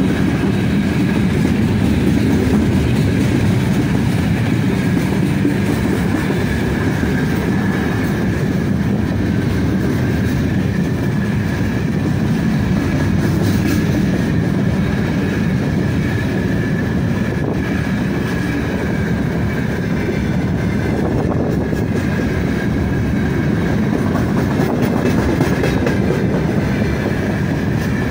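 Freight train's open gondola wagons rolling past at close range: a steady wheel-on-rail rumble with a clickety-clack over the rail joints and a thin steady high tone above it.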